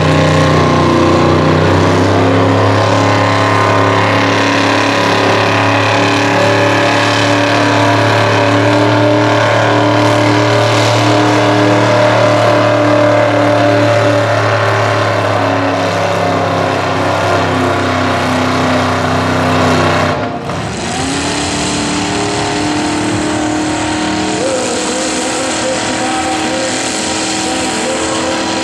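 Mud truck engines running hard under the load of a pulling sled. The first engine runs at a steady, loud, high-revving drone, then cuts off abruptly about two-thirds of the way through. A second mud truck's engine takes over, revving up and then holding steady.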